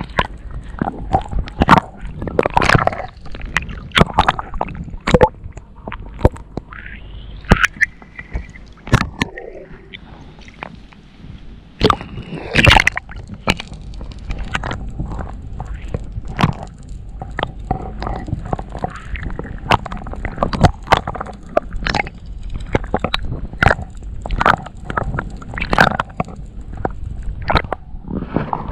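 Sea water sloshing and slapping against a kayak's hull, with irregular sharp knocks and splashes.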